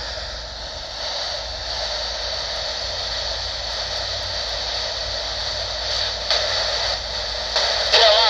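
Uniden PRO401HH handheld 40-channel AM CB radio with its squelch open, giving a steady static hiss from its speaker. Near the end a warbling, wavering radio signal breaks in over the static.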